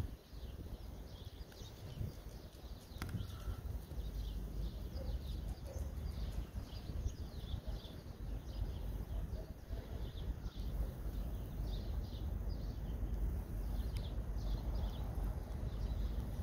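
Small birds chirping over and over, many short high falling notes, above a low steady rumble that slowly grows louder.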